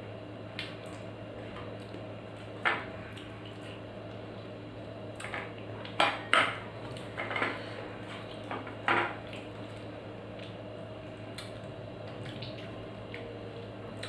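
Sharp clinks and scrapes on a stainless steel plate as a ripe mango is handled by hand, about half a dozen, most of them bunched together in the middle, over a steady low hum.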